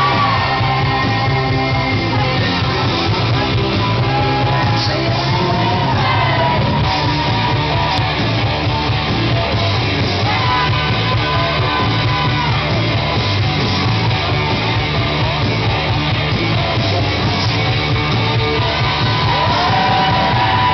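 Loud music with singing, running steadily throughout.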